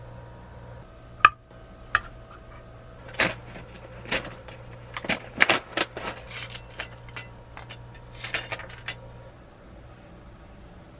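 A metal spoon taps a stainless steel footed bowl with a short metallic ring, then a pouch of granola rustles and granola is poured into the bowl in a run of crackles and clatters. A faint steady low hum lies underneath.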